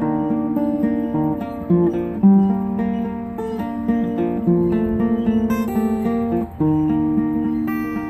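Acoustic guitar playing an instrumental passage of a folk song, a repeating pattern of picked and strummed ringing notes.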